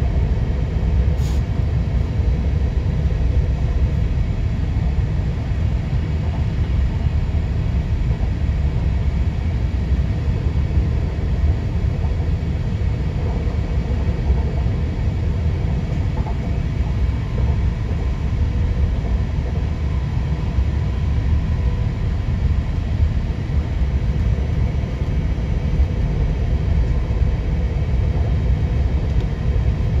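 Steady low rumble inside an NSB Class 72 electric multiple unit under way, the running gear and motors making an even drone with no change in pitch.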